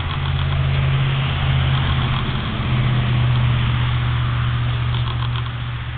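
A steady, loud engine hum, like a motor idling.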